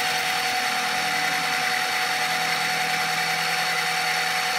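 Mini-mill running steadily, its spinning shell mill taking a cut across a Delrin block: an even machine sound with a few steady tones that do not change.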